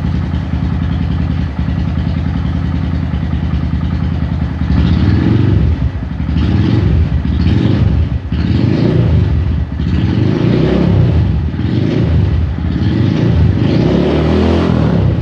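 Honda Grom's single-cylinder four-stroke engine running, freshly filled with oil and run to circulate it before the level check. It idles steadily at first, then from about five seconds in is revved in short blips, about eight times.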